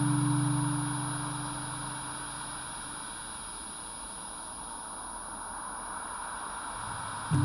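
Steady static-like hiss with a thin, high, continuous whine and a fainter mid tone above it. A low electrical hum fades away over the first couple of seconds, then cuts back in abruptly at the very end.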